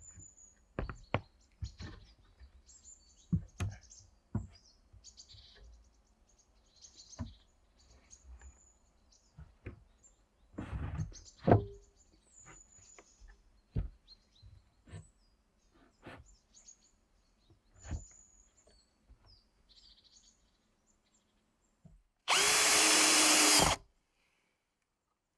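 Wooden framing boards knocked and clunked as they are laid into place on a plank deck, with birds chirping faintly. Near the end a cordless drill drives a screw through a metal angle bracket into the timber in one steady burst of about a second and a half.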